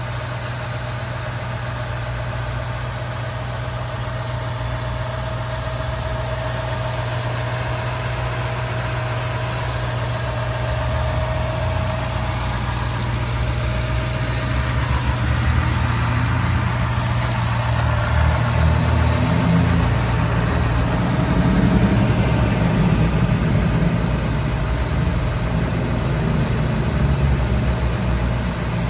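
Ford FPV GT Cobra's Boss 302 V8 engine idling steadily with the bonnet open, with a faint steady whine in the first half. It grows somewhat louder and fuller in the second half.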